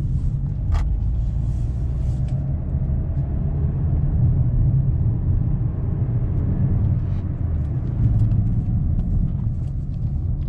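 2018 Mazda3 being driven: a steady low rumble of road and engine noise, with a few faint ticks in the second half.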